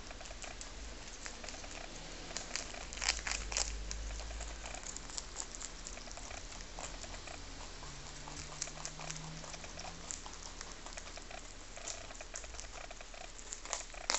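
Two lop-eared rabbits chewing a cabbage leaf: a fast, continuous crunching. There are a few louder crunches about three seconds in and again near the end.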